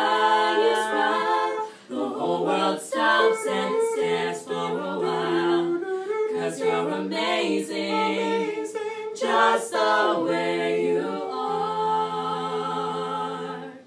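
Small mixed a cappella vocal group of four singers singing in close harmony, a low voice holding long bass notes under the melody. They close on a long held chord that cuts off at the end.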